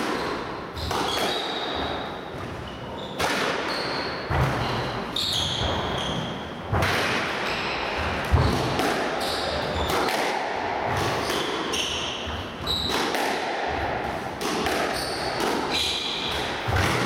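A squash rally: a hard rubber squash ball struck by rackets and smacking off the walls, a sharp hit every second or so, with short squeaks of court shoes on the wooden floor between the hits, echoing in the enclosed court.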